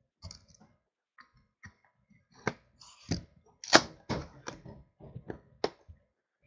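A trading card hobby box being handled and opened: its lid and contents knock and tap against each other and the table, with a few short rustles. The sharp knocks are irregular, and the loudest comes about halfway through.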